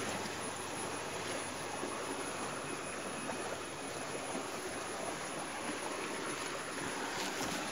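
Steady rushing hiss of flowing stream water, swollen by the monsoon rains.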